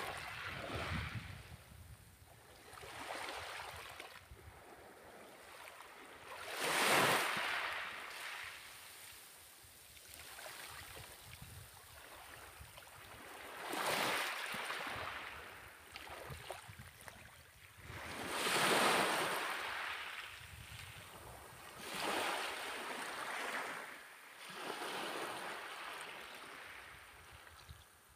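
Small waves breaking and washing up onto a beach, the rush of surf swelling and fading every few seconds, with two louder surges.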